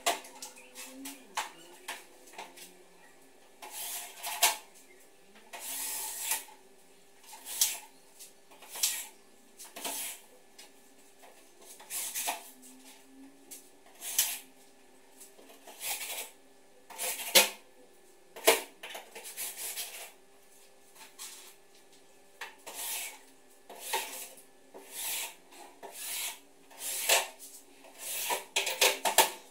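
Irregular clinks, knocks and short scrapes of hand work on galvanized metal stud framing, over a faint steady hum.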